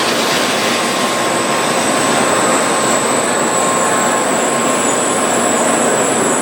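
Shinkansen bullet train running, a loud, steady rush of rail and air noise with a thin high whine over it.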